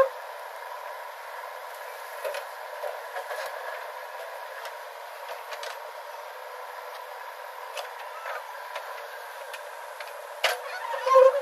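JCB backhoe loader's engine running steadily as the machine digs and swings soil, sounding thin with no low rumble. Sharp knocks come near the end.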